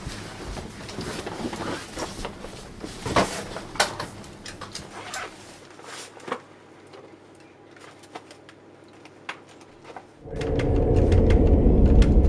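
Small clicks, knocks and rustles of packets and goods being grabbed off shop shelves, busiest in the first few seconds and sparse after. About ten seconds in, a loud low rumbling swell of dramatic film music rises and becomes the loudest thing.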